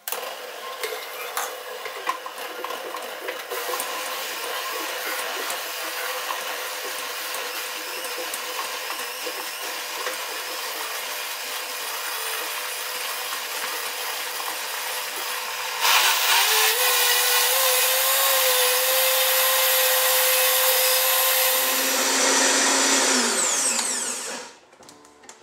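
Vitamix blender motor running, blending a thick zucchini-and-tahini hummus while the tamper pushes it into the blades. About two-thirds of the way through it is switched to a louder, higher speed; near the end it slows with a falling pitch and stops.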